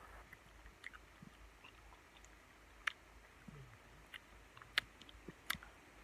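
A person chewing a mouthful of freshly picked blueberries close to the microphone, with faint scattered wet mouth clicks, the sharpest about three and five seconds in.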